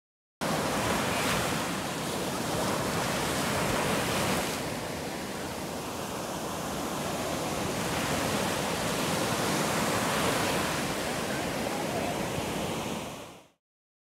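Sea surf: waves breaking and washing up a sandy beach in a steady rush that swells and eases, fading out near the end.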